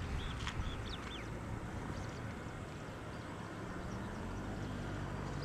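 Steady outdoor background noise, with a few short bird chirps in the first second or so and a low steady hum coming in near the end.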